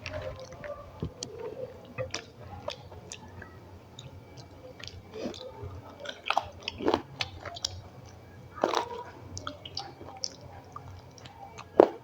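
A person chewing and eating a meal close to the microphone: irregular wet mouth clicks and smacks, with a few louder crunches about seven and nine seconds in and near the end.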